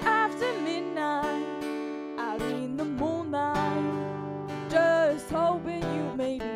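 A woman singing a slow country song with her own strummed acoustic guitar, her voice gliding and wavering over the steady strummed chords.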